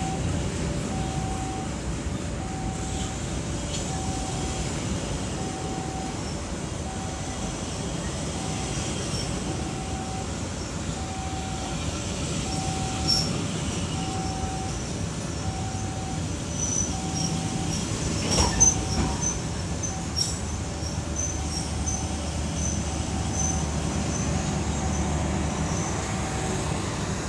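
Passenger train carriages rolling slowly past on the rails, with a steady rumble and wheel clatter and a sharp clank about 18 seconds in. A two-tone beeping signal repeats about once a second alongside it, fading in the last few seconds.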